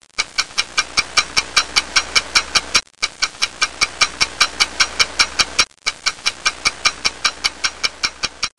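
Clock ticking fast and evenly, about five ticks a second, over a faint hiss. The ticking breaks off briefly twice.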